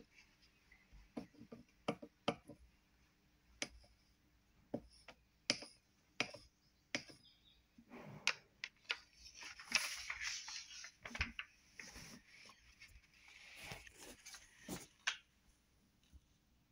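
Faint scattered taps and clicks of a child's hand on a painting sheet and tabletop, with two stretches of soft paper rustling in the second half as the sheet is handled and lifted.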